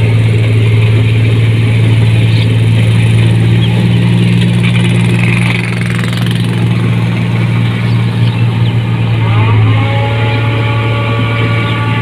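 New Holland 1545 combine harvester running with a steady, deep engine hum. About nine seconds in, a higher-pitched whine rises and then holds steady.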